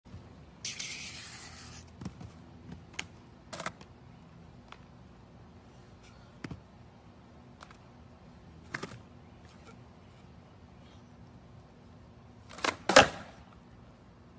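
Scattered sharp clacks and taps of a skateboard on a concrete sidewalk under a rider in inline skates, the loudest double clack near the end, with a brief hiss about a second in.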